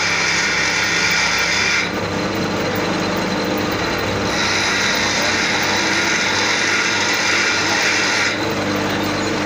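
Metal lathe running, spinning a tubewell fan pulley. A harsher high hiss over the steady machine hum stops about two seconds in, returns about four seconds in and stops again about eight seconds in.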